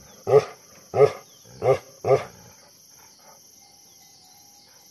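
Bhotia dog (Himalayan sheepdog) giving four heavy barks in quick succession, about two-thirds of a second apart, then falling silent a little over two seconds in.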